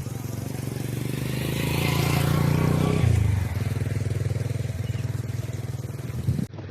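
A motorcycle engine running steadily. It grows louder over the first couple of seconds, and its pitch drops suddenly about three seconds in.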